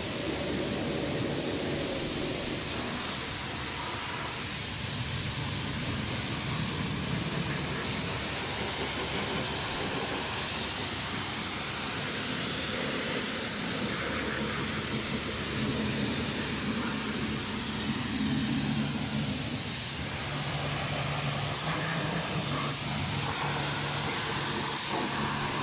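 Kranzle K7 pressure washer running with a steady hum from its motor and pump, under the continuous hiss of a wide 40-degree fan of water spraying over an engine bay at half pressure: a light pre-rinse to knock back loose dirt.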